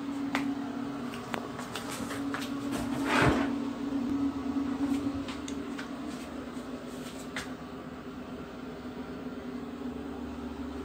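Steady low mechanical hum, with scattered light clicks and knocks and one loud brushing sound about three seconds in.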